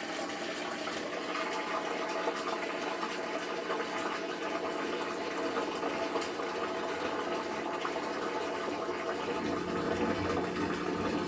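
Washing machine draining: water rushes steadily, and a low pump hum grows louder near the end.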